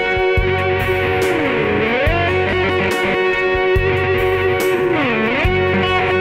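Slow instrumental ballad: an electric guitar holds long, sustained lead notes over keyboard chords and low bass notes. Twice the held note swoops down in pitch and glides back up.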